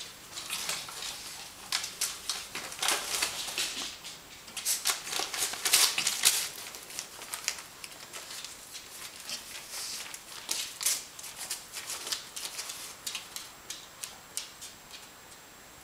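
Small dog tearing and crinkling paper in its bed: irregular crisp rips and rustles, busiest in the middle and thinning out near the end.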